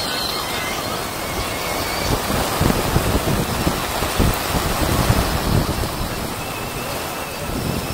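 Heavy rain pouring down steadily, with gusts of wind rumbling on the microphone for a few seconds in the middle.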